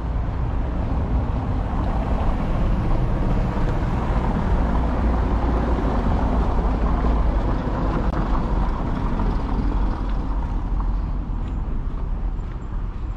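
Street traffic: a motor vehicle passing close by, the noise swelling through the middle and easing off near the end.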